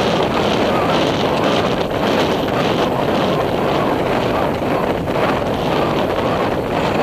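Wind buffeting the microphone of a helmet-mounted camera on a rider moving at speed across open ground, a loud steady rush.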